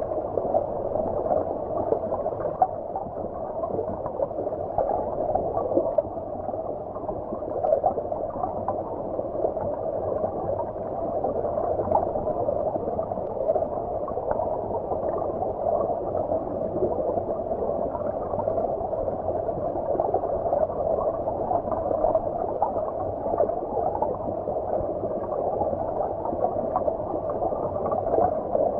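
Stream water flowing, heard from under the surface: a steady, muffled rush with no high notes and small flickers all through.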